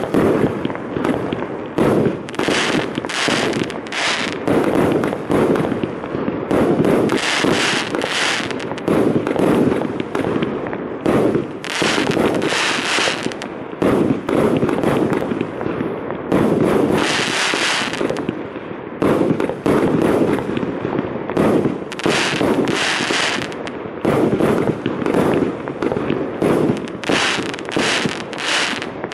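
Lesli Mammoth 288-shot, 25 mm fireworks battery firing: a continuous rapid string of launch thumps and shell bursts, with a brighter, hissier stretch about every five seconds.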